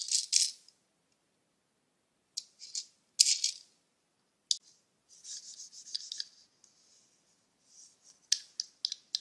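Small plastic toy figures rattling and clicking as they are handled. A rapid rattle stops within the first second, then come scattered light clicks and a short soft rustle near the middle.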